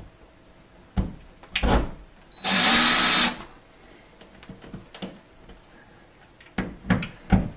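Cordless drill with a Phillips bit driving a long screw into a wall stud, in one short burst of about a second, with a few sharp clicks before and after it.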